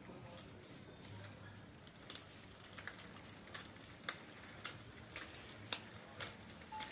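Footsteps on a hard shop floor: light, evenly spaced clicks at a walking pace of about two a second, over a faint low hum.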